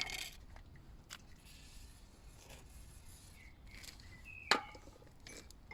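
Hand tools working on a car's rear brake assembly: a few scattered taps and clicks, with one sharp metallic click about four and a half seconds in and a couple of faint short squeaks.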